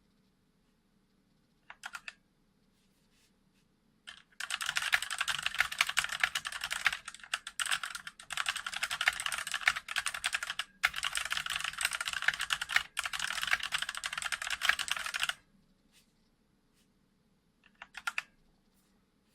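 Typing on a Thinkway CROAD K38 waterproof mechanical keyboard with hot-swappable switches: a few keystrokes, then about eleven seconds of fast, continuous typing with brief pauses, then a few last strokes near the end.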